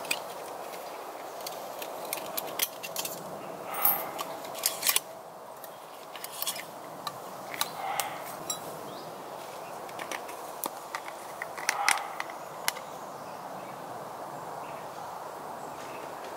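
Scattered clicks and light metallic knocks as a small alcohol burner is taken out of its cloth pouch and its lids are opened, with the sharpest clicks about four to five seconds in and again near twelve seconds.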